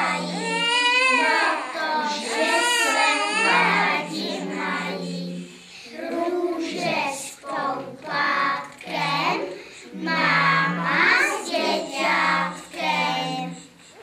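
A group of young children singing a song together in unison, in phrases that rise and fall.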